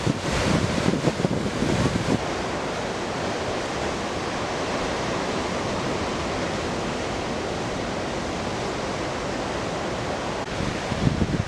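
Ocean surf breaking and washing over a rocky shoreline: a steady, even rushing. For about the first two seconds, and again near the end, wind buffets the microphone with a gusty low rumble.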